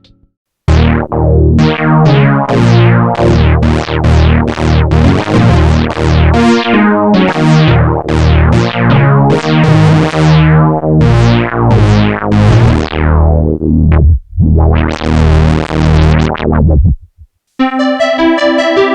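Roland Boutique JX-08 polyphonic synthesizer playing a run of plucky chords, each bright at the strike and quickly dulling, about two a second. After a short break comes one swelling held chord, and near the end a different patch with steadier sustained notes.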